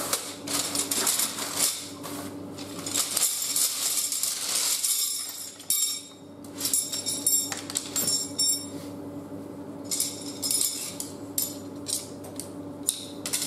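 Aluminium camp-cot poles and plastic end fittings clinking and rattling against one another and a hard floor as they are tipped out of a fabric stuff sack and sorted by hand. The sack rustles for the first few seconds, then the clatter of separate clicks and clinks takes over.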